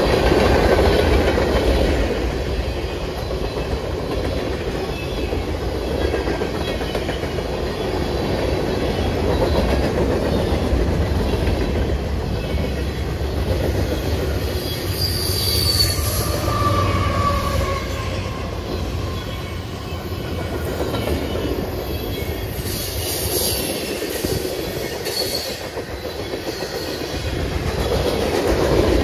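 Freight cars of a mixed freight train rolling past: a steady rumble of steel wheels on the rails, with brief high wheel squeals about halfway through and again a few seconds later.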